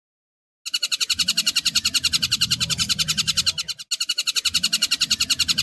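Tengkek buto kingfisher giving a fast rattling call of evenly spaced notes, about a dozen a second, starting just under a second in. It breaks off briefly a little before the four-second mark and resumes.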